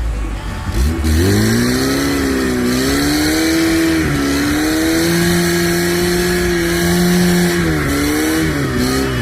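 Off-road vehicle engine revving hard under load, its pitch rising and falling, then held high and steady for several seconds from about four seconds in before dropping and picking up again.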